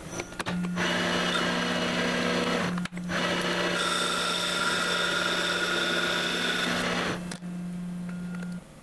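Metal lathe taking a turning cut on a bar: a steady spindle hum under the noise of the tool bit cutting and chips coming off, with a brief break about three seconds in and a thin whine through the middle of the pass. The cutting noise stops about seven seconds in, leaving the hum, which cuts off shortly before the end.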